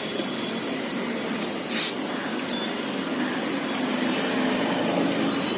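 Steady street traffic hum, with a few scattered knocks of a knife chopping green chillies on a wooden board, the clearest about two seconds in.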